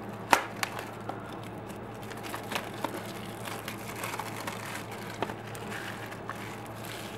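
Plastic shrink-wrap crinkling and crackling as it is peeled off a Blu-ray case, with scattered sharp clicks, the loudest about a third of a second in. A steady low hum runs underneath.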